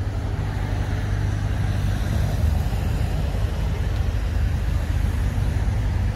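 Steady low rumble of a car engine running nearby, unchanging throughout.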